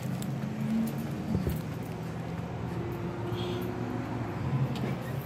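Footsteps and phone-handling noise from someone walking, over a steady low hum, with one knock about a second and a half in.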